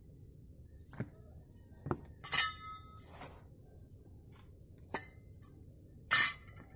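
Steel mason's trowel scraping and clinking against a metal bucket and chunks of broken asphalt while sand-cement mix is spread. There are a few sharp knocks, a short ringing metallic scrape about two and a half seconds in, and the loudest scrape near the end.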